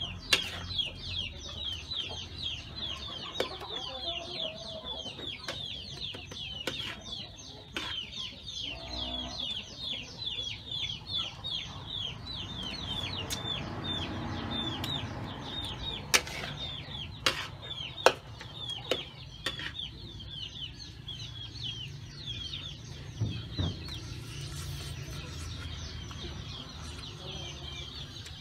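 Chicks peeping in a quick, continuous run of short falling chirps, several a second. A metal ladle clinks against the wok now and then, the loudest sounds, over a low hiss of food frying.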